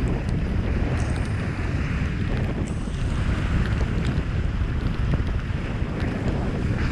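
Steady wind rushing over the microphone of a camera worn by a skier moving down the slope, with the hiss of skis sliding on snow.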